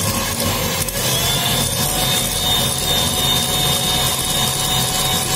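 Electric hand mixer running, its beaters beating softened butter in a glass bowl: a steady motor whine over a rumble, with the whine changing pitch about a second in.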